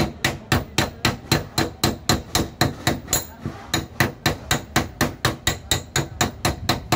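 Rapid, steady hammering on the lower body of a vehicle, about four blows a second, each with a slight metallic ring.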